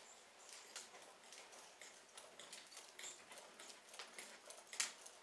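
Horse's hooves striking the sand footing of a round pen: faint, irregular soft hoofbeats, with one louder strike near the end.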